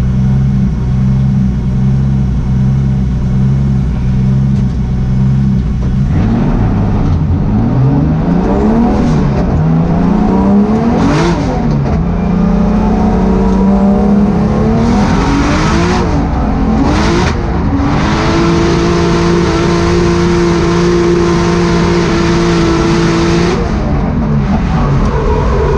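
BMW E46 drift car's engine heard from inside the stripped, caged cabin. It runs at a steady speed for the first few seconds, then revs rise and fall repeatedly. About eighteen seconds in, the engine is held at high revs through a long slide, then drops away near the end.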